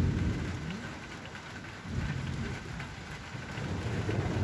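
Thunder rumbling over steady rain. The rumble swells at the start, again about two seconds in, and builds near the end.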